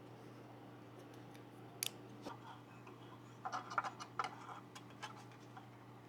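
Scattered light clicks and taps of small parts being handled during PC assembly, a cluster of quick clicks in the middle, over a steady low hum.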